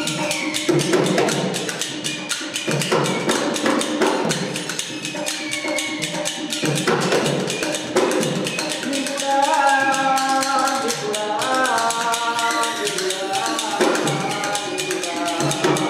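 Live Rajasthani folk music: rapid, steady hand percussion with a jingling, tambourine-like edge, joined about nine seconds in by a melody of held notes that slide in pitch.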